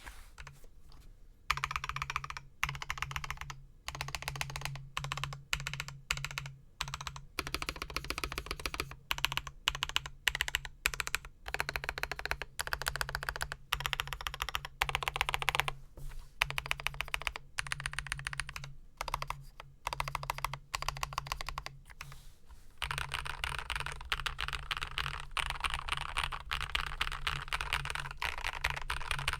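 Typing on a TY104 full-size mechanical keyboard with lubed Aflion Ink tactile switches, a steel plate, case and plate foam, and Cherry-profile keycaps. Rapid keystrokes come in bursts with short pauses, then run into continuous fast typing about three quarters of the way through.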